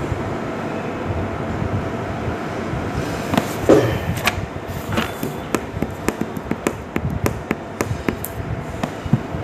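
Steady background rumble, then from about three seconds in a run of sharp, irregular clicks and taps from small plastic and metal brake-switch parts being handled.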